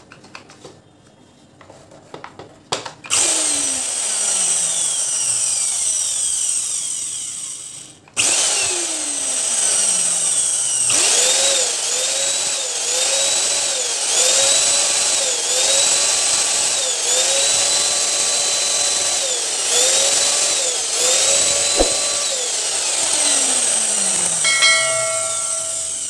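A few handling clicks, then a Stark canister vacuum cleaner's motor switches on suddenly and runs at full speed with a loud high whine. It cuts out for a moment and restarts, then its pitch dips and recovers every second or two before it winds down near the end. The motor runs again after its loose supply wire was refixed.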